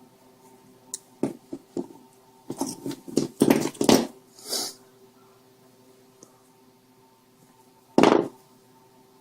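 Hands and a hand tool working the thin, soft wires of a spliced laptop charger cord: a few sharp clicks, then a cluster of scraping and rustling handling noises, and one more loud scrape near the end, over a faint steady hum.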